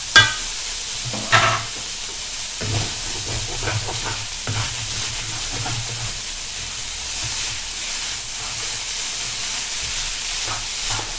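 Rice vermicelli and prawns stir-frying in a hot wok: a steady sizzle, with the spatula tossing and scraping the noodles. There are two sharp knocks of the spatula against the wok in the first second and a half.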